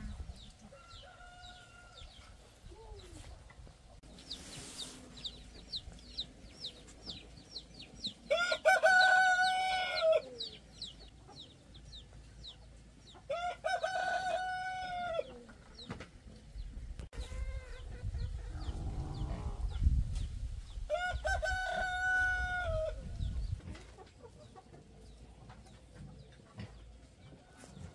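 A rooster crowing three times, each crow a held call of about two seconds that drops at the end. Rapid high chirps fill the first several seconds, and a low rumble comes in the middle, between the second and third crows.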